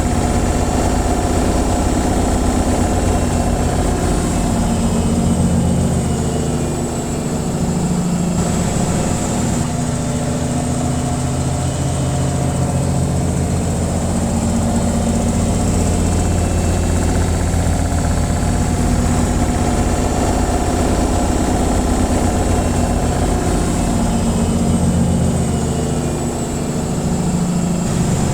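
Washing machine on its spin cycle: a steady low hum and whir from the spinning drum, easing slightly a couple of times.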